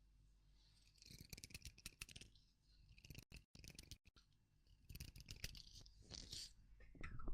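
Faint ASMR scratching and rubbing close to the microphone: fine crackling clicks in three bursts, about a second in, around three to four seconds in, and from about five to six and a half seconds in.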